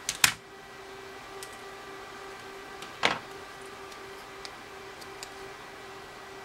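Plastic calculator case knocking and clicking as it is handled and set down on a cutting mat. There is a sharp double knock just after the start, another knock about three seconds in, and a few faint ticks.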